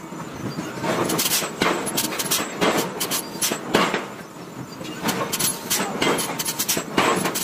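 Irregular heavy metal clanks and knocks, about two or three a second, from forging a red-hot steel wheel blank on an anvil block under a press ram while it is levered round with a steel bar.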